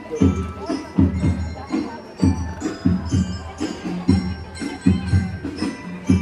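Music with a heavy, steady bass beat played through a large PA sound system during a sound check.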